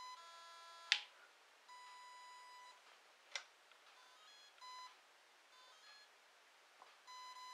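Eachine SS Series 125A brushless boat ESC sounding its programming-mode tones: a short beep, a long steady tone about two seconds in, then short beeps near the middle and near the end, each tone marking a step in the settings menu. Two sharp clicks come about one second and three seconds in; the first is the loudest sound.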